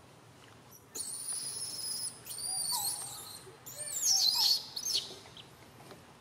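Long-tailed macaque screaming in distress: a run of high, shrill calls over about four seconds, the first held steady and the last ones falling in pitch, with a few shorter, lower calls among them.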